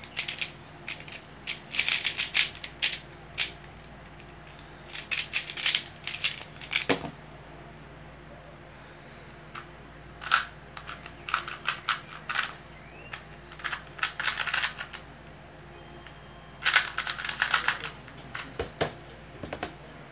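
Plastic speedcube being turned fast by hand: quick runs of clicking turns broken by short pauses.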